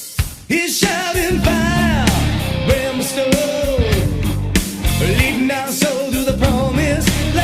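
Hard rock song with a lead vocal line sung over the full band. The band drops back for a moment just after the start, then comes in again.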